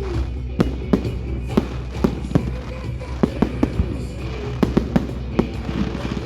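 Fireworks going off in rapid succession, a string of sharp irregular bangs several times a second, over music.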